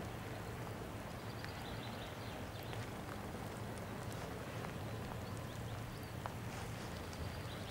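Light rain: scattered, irregular raindrop ticks over a steady hiss, with a low wind rumble.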